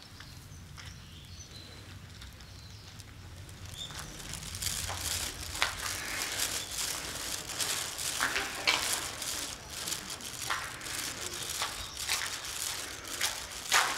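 Footsteps crunching on gravel and debris, irregular, starting about four seconds in over a low rumble.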